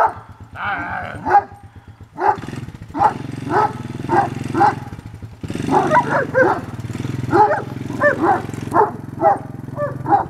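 A Doberman barking over and over in short, sharp barks, some in quick runs, at a man on a three-wheeler ATV. The three-wheeler's engine runs steadily underneath, getting louder about two seconds in.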